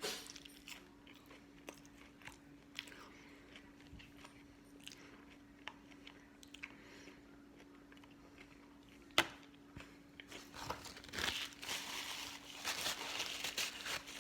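A person chewing and crunching fried food: scattered faint chewing clicks, a sharp click about nine seconds in, then louder, denser crunching over the last few seconds. A faint steady hum runs underneath.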